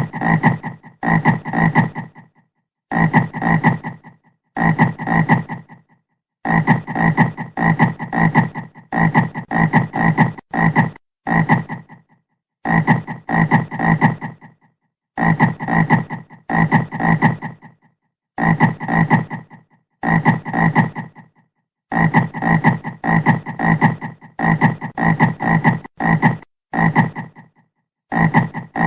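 A frog croaking in short bouts of about a second, each a rapid pulsed low croak, with dead silence between bouts.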